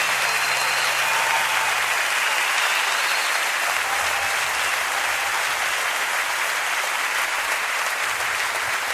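Large audience applauding steadily at the end of a song. A low held note from the band dies away about two seconds in.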